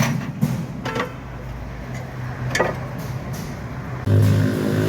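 A motor running steadily with a low hum, under three sharp metallic knocks from work on the car. About four seconds in, a louder, deeper steady hum cuts in suddenly.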